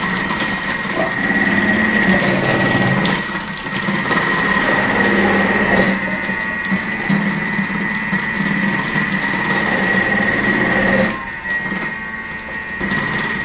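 Thermomix TM6 motor driving the Cutter attachment's grating disc on the thick-grate setting, a steady high whine over a lower hum, as cucumber is pressed down the feed tube and grated. It drops quieter for a moment about eleven seconds in.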